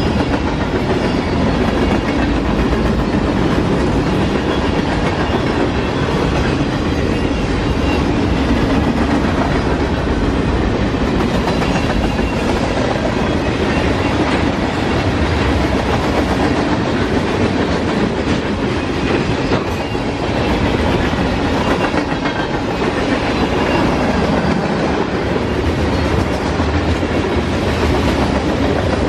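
Norfolk Southern freight train rolling past steadily, its wheels clacking over the rail joints.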